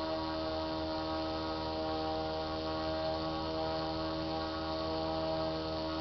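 Modified Radio Shack 12-volt DC brush motor, rewired as a four-contact asymmetrical motor, running steadily on 6 volts under load: a steady buzzing hum.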